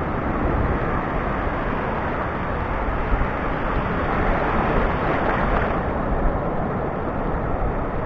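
Surf from a rough sea washing in over rocks and stones at the water's edge, a steady rushing with one wave louder about five seconds in.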